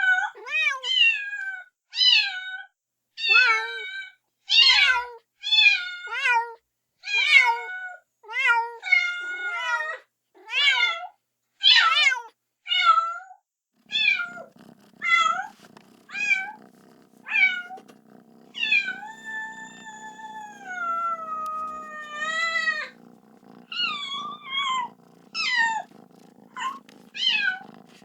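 Kitten meowing over and over, calling for its mother: short, high, falling meows about one a second, with one long drawn-out meow past the middle. A low steady hum comes in about halfway.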